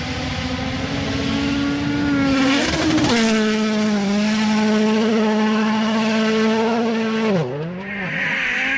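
An engine running at steady high revs, with a burst of noise about two and a half to three seconds in and a brief drop and recovery in pitch near the end.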